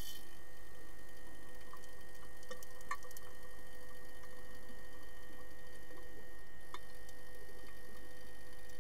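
Underwater ambience of a pool during an underwater hockey game, picked up by an underwater camera: a steady hum of a few fixed tones over a low rumble, with a few sharp clicks, two close together about two and a half to three seconds in and another near seven seconds.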